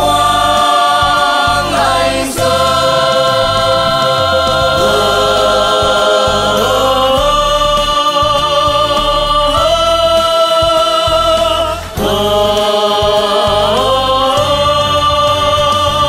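A song with long, wordless held vocal notes with vibrato, each sliding up to a new pitch every few seconds, over instrumental backing with a pulsing bass.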